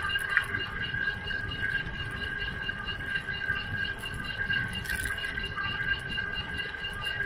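Rolling noise of a bicycle ride: low wind and tyre rumble on the paved path, with a steady, evenly pulsing high whine over it.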